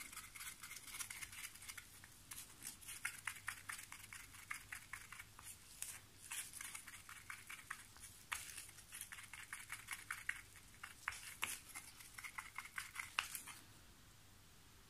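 Faint, quick, irregular clicking and scraping of a stirring stick against the walls of a small mixing cup as pigment powder is stirred into epoxy resin. The stirring stops shortly before the end.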